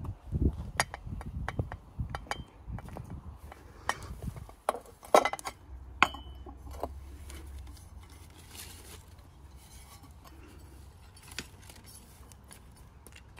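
Metal hand trowel clinking and scraping against a clear tub while scooping and spreading chunky landscape bark chips, with quick clicks and knocks. The clinks come thickly in the first half, then thin out to a few scattered taps.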